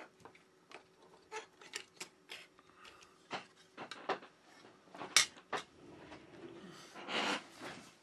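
A run of sharp clicks and taps as a smartphone's back cover and body are handled and the phone is set down on a desk, with a short rustle near the end.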